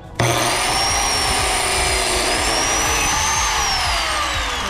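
Handheld electric router starting abruptly and running at full speed with a high whine while cutting slots for the shims that join the desktop boards. About three and a half seconds in it is switched off, and the whine falls steadily as the motor spins down.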